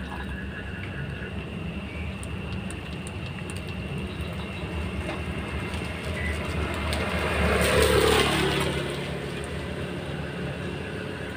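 A vehicle passes on the wet road: its tyre hiss and engine build to a peak about eight seconds in, then fade with a falling pitch, over a steady hiss of rain.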